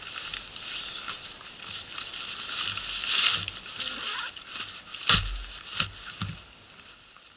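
Nylon stuff sacks rustling and crinkling as camping gear is stuffed into a bag and pressed down by hand, with two sharp knocks a little after halfway. It dies down near the end.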